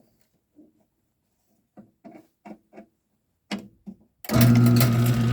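A few faint clicks and knocks, then about four seconds in a LiftMaster 1265LM garage door opener starts up, its motor running loudly and steadily with a deep hum.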